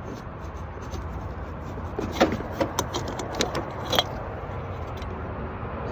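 Old blower motor being pulled out of its housing: a run of short clicks, knocks and rattles about two seconds in, over a steady low rumble.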